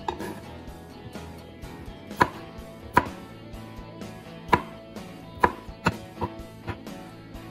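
Kitchen knife cutting strawberries on a wooden cutting board: sharp knocks of the blade striking the board, a few widely spaced and then coming quicker, about two or three a second, near the end.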